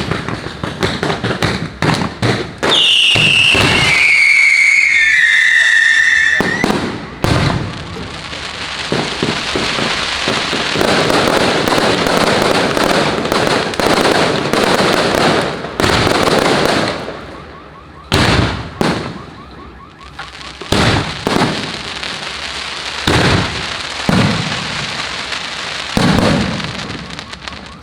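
Fireworks going off: a dense, continuous crackle with many sharp bangs, and a high whistle that steps down in pitch about three seconds in.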